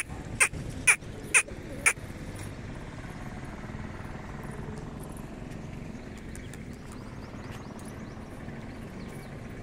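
A crow cawing, five quick calls about half a second apart in the first two seconds, then a steady outdoor background hum.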